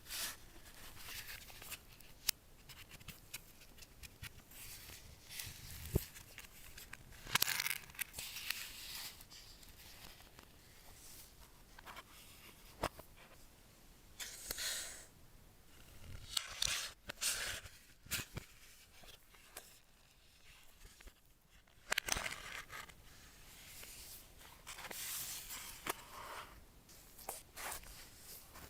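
Packaging being handled during an unboxing: irregular tearing, crinkling and scraping rustles, with a few sharp taps.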